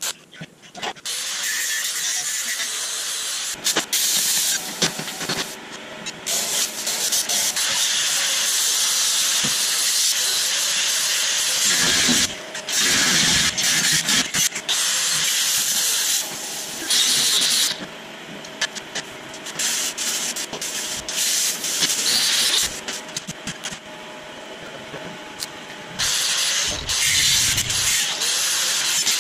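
Angle grinder grinding steel: a loud hissing grind in long runs, broken by short pauses, with a quieter stretch in the second half.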